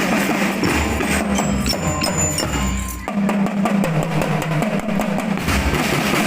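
Percussion-led music with drums. The deep drum drops out about halfway through and comes back near the end.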